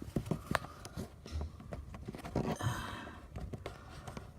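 Scattered small clicks and taps of hands working at plastic dashboard trim, with a short breathy rustle about halfway through.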